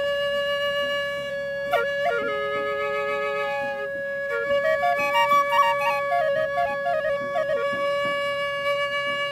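A wind instrument holds a steady drone note while a flute-like melody steps between notes above and below it; the melody grows busier from about halfway in.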